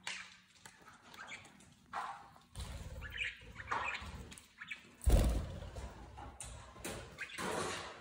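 Budgerigars chirping and chattering in short, scattered calls, with a dull thump about five seconds in.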